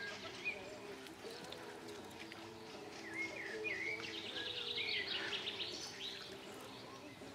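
Small birds calling with short chirps several times over a faint, steady low hum, with a brief run of rapid light ticks about two-thirds of the way in.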